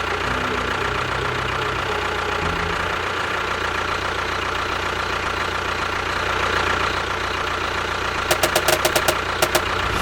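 An engine running steadily, with a run of about eight quick sharp clicks or clanks near the end.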